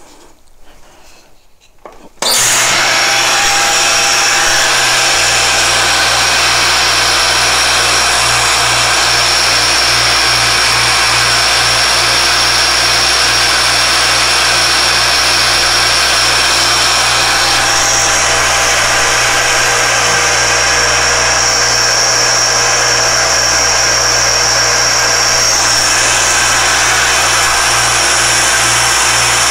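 Alexander Model 3A pantograph engraving machine starting up about two seconds in, its spindle then running loud and steady with a high whine, while the cutter engraves an hour index into German silver. The whine grows stronger for several seconds in the second half.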